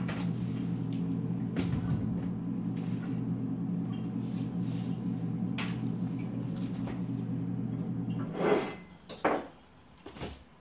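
A steady low electric hum that cuts off abruptly about eight seconds in. Scattered knocks and clatters of kitchenware sound through it, with a few louder clatters just after the hum stops.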